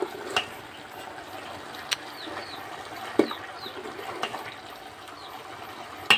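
Pot of food boiling on an open wood fire: a steady bubbling hiss with a few sharp clicks now and then. A ladle stirs in the pot near the end.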